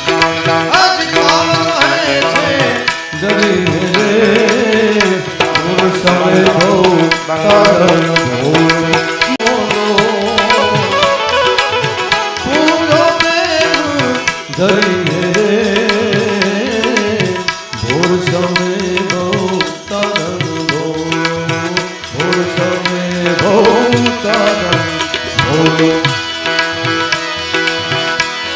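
Live Gujarati dayro folk-devotional music: a melodic lead line rising and falling in short phrases over a steady drone, with a busy drum accompaniment.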